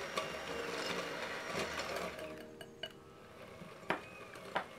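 Baking ingredients being stirred by hand in a mixing bowl: a rough scraping with light clinks of the utensil against the bowl, then two sharp taps near the end.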